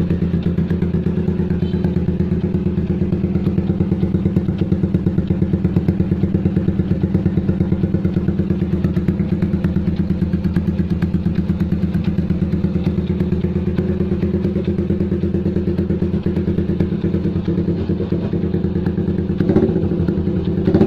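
Yamaha Jupiter MX II's single-cylinder four-stroke engine idling steadily through an aftermarket full-stainless racing exhaust, giving a fast, even deep exhaust pulse.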